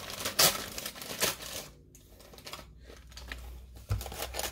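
A cardboard box being torn open by hand: crinkling and tearing in a few short bursts, then a dull low thump near the end.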